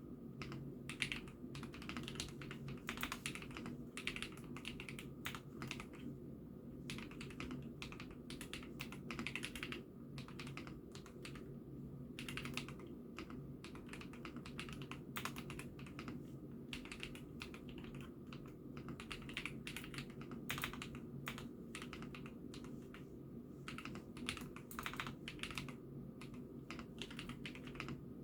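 Continuous typing on an IKKI68 Aurora mechanical keyboard: a dense, irregular stream of key clacks, picked up by a phone microphone over a steady low hum.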